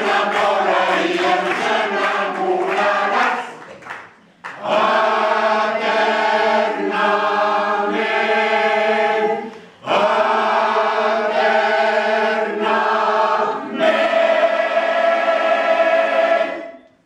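Mixed choir of men's and women's voices singing the closing phrases of a song in sustained chords, with two brief breaks between phrases and a final held chord that cuts off cleanly near the end.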